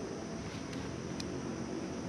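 Steady outdoor background rumble and hiss, with two faint light clicks about a second in from the tent's plastic pole clips being snapped onto the poles.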